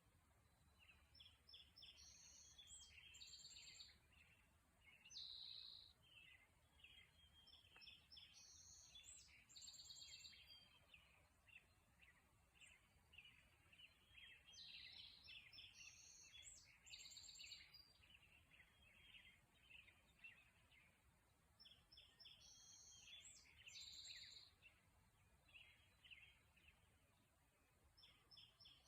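Faint morning birdsong from songbirds: near-continuous chirps and short notes, with a high song phrase repeated about every six or seven seconds.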